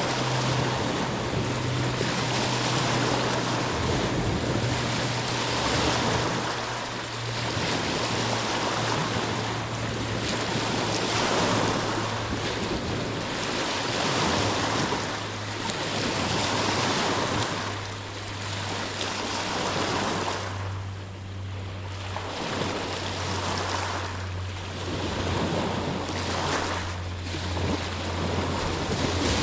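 Waves washing in and drawing back, surging every two to three seconds, with a steady low hum underneath.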